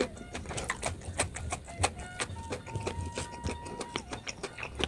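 Close-up eating sounds: chewing with a full mouth while fingers pull at fish and pinch up rice, heard as a rapid, irregular run of small clicks and smacks.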